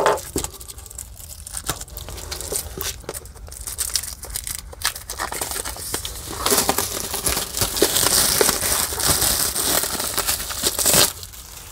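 Plastic shrink-wrap being slit and peeled off a spiral-bound book, crinkling and tearing in quick little crackles. The crinkling grows heavier through the second half and stops about a second before the end.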